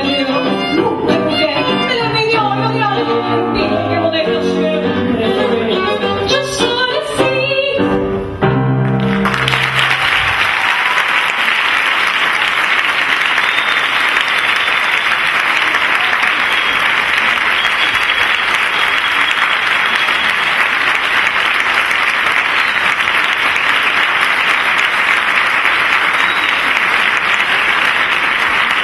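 A live song with voices and piano ends about nine seconds in. Steady audience applause follows.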